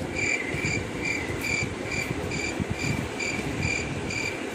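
A quick series of short, high electronic beeps, about two a second, that stops after about four and a half seconds.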